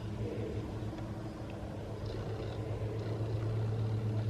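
A motor vehicle's engine running steadily, growing gradually louder as it approaches.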